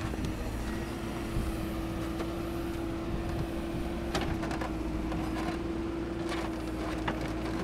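JCB backhoe loader's diesel engine running steadily at a constant pitch while it digs, with a few light knocks of the bucket and stones.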